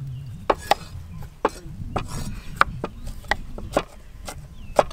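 Knives and a cleaver chopping carrots and garlic on thick wooden chopping blocks: irregular sharp knocks of blades striking the wood, about two a second.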